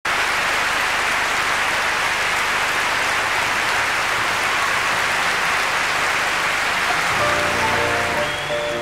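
Concert audience applauding steadily. About seven seconds in, the applause fades and a grand piano begins to play.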